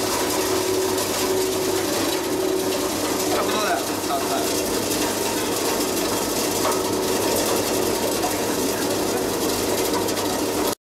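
KODI ATC seaweed chopping machine running steadily: a dense mechanical clatter over a constant hum. It cuts off abruptly near the end.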